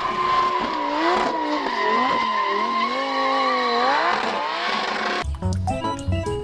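Race car engine revving, its pitch rising and falling several times, with a steady high whine over it; it cuts off suddenly about five seconds in.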